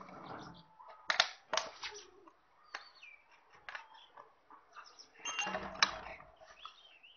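Metal clicks and rattles of a chainsaw guide bar and chain being handled and fitted onto the saw body: a few sharp clicks about a second in, and a denser rattling cluster around five to six seconds.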